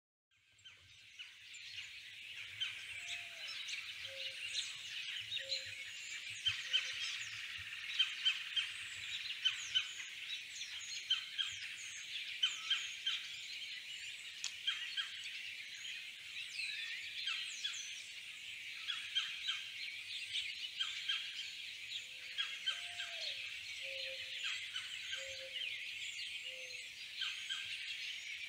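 Many birds chirping and calling together in a dense, steady chorus, fading in from silence at the start. A lower call of about four short notes is heard twice, a few seconds in and again near the end.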